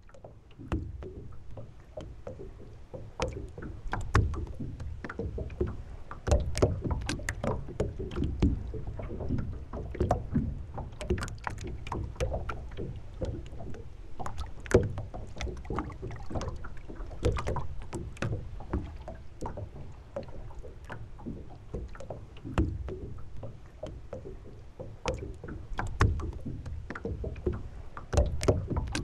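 Water slapping and lapping against the hull of a moored sailboat: irregular sharp slaps and splashes, several a second, over a steady low rumble.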